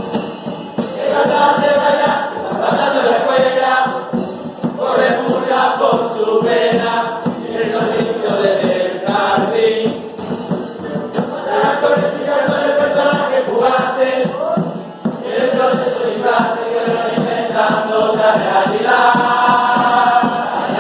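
A group of voices singing a murga song in chorus on long held notes, backed by steady drum beats.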